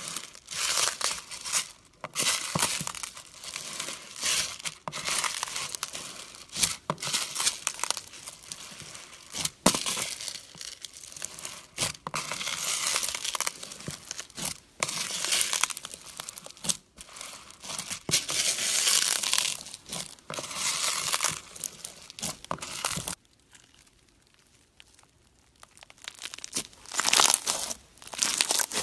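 Crunchy slime packed with clear plastic beads being squeezed and kneaded by hand: dense crackling and crunching in uneven spurts. The crackling pauses for a few seconds near the end, then starts again.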